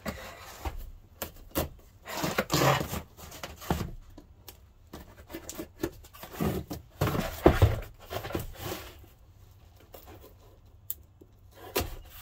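Cardboard boxes being handled and moved about on a bench: scraping and rustling of cardboard, with scattered dull thumps as they are slid and set down, the loudest about seven to eight seconds in.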